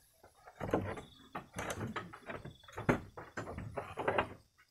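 Goat bleating in a series of short, rough calls, with sharp knocks among them.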